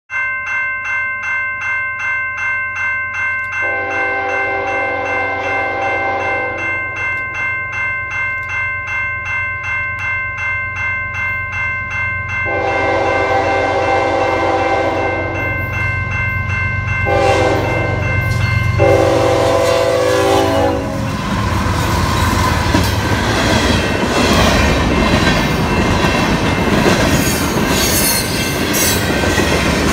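Railroad crossing bell ringing about twice a second as an approaching Canadian National freight locomotive blows its horn in the grade-crossing pattern: long, long, short, long. About two-thirds of the way through, the locomotive passes close by, and the loud rumble and clickety-clack of the freight cars takes over.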